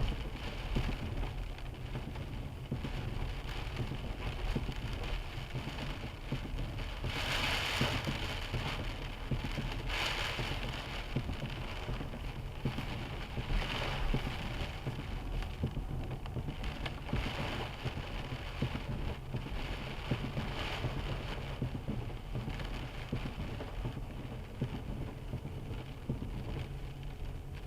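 A car driving in the rain, heard from inside the cabin: a steady low engine and road rumble under the hiss of rain and wet tyres, with louder swells of hiss every few seconds.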